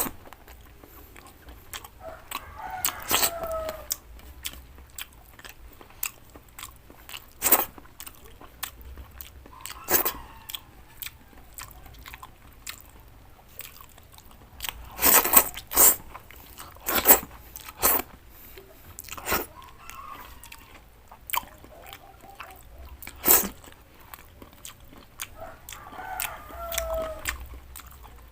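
Close-miked eating: chewing and crunchy bites of cooked vegetables, with sharp clicks scattered through and a few tight clusters about halfway. Two brief squeaky gliding sounds come near the start and near the end.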